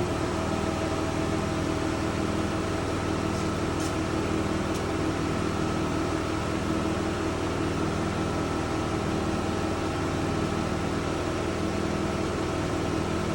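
A steady machine hum at a fixed pitch, switching on suddenly and holding constant, with a couple of faint light ticks about four seconds in.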